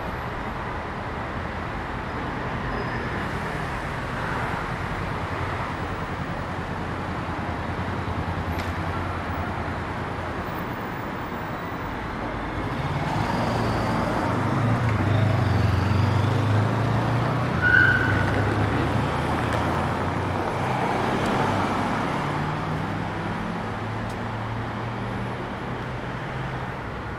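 Street traffic: cars and vans running and passing on the road alongside. It grows louder about halfway through as vehicles pass close, with one short high squeak among it.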